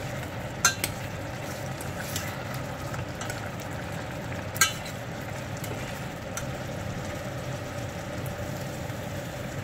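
Soy-braised chicken and boiled eggs simmering in a stainless steel pot, the sauce bubbling and sizzling steadily as it reduces. A metal spoon stirs through it, clinking sharply against the pot about a second in and again at about four and a half seconds, with a few lighter taps between.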